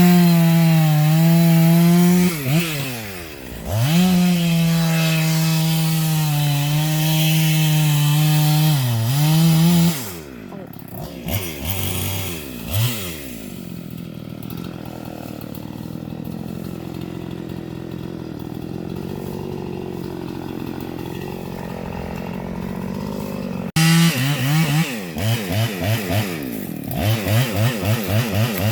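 Husqvarna gas chainsaw running at full throttle and cutting through wood, its pitch sagging briefly under load, for about ten seconds. It then drops to a lower, steady idle for a long stretch. Near the end it is revved in a series of quick throttle blips.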